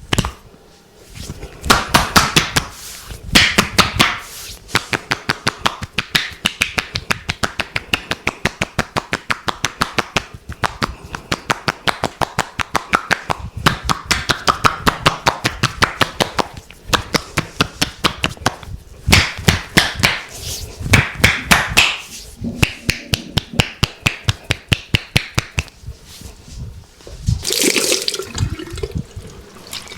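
Rapid percussive massage strokes: hands slapping and chopping on a client's body, about three to four sharp slaps a second with short pauses between runs. A longer noisy swish comes near the end.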